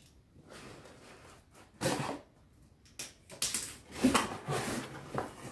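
Rustling and scraping of packaging being handled as a subscription book box is opened and its contents pulled out: a few short noisy bursts, then a longer spell of rustling in the second half.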